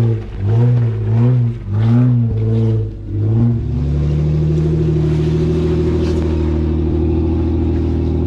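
Four-wheel-drive's engine revving in a run of short throttle blips, then held at steady revs under load as it crawls up an off-road climb.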